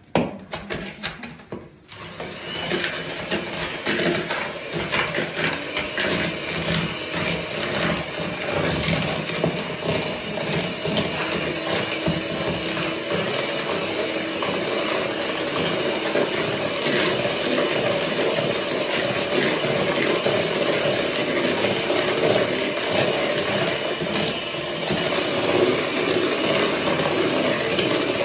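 Electric mixer switched on about two seconds in and running steadily, beating the eggs for a semolina cake batter.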